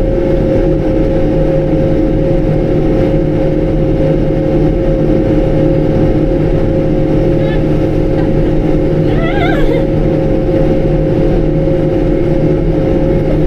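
Large diesel farm tractor engine running steadily while the tractor is driven, a constant drone with a steady high whine over it.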